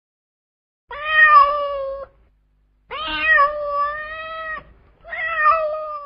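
A cat meowing three times, each meow long and drawn out at a fairly steady pitch.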